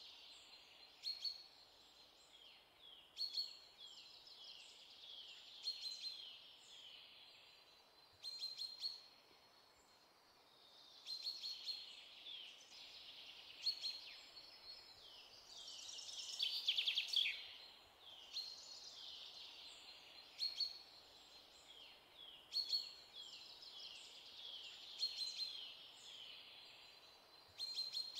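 Small birds chirping: bursts of quick, falling chirps repeat every second or two, loudest a little past the middle.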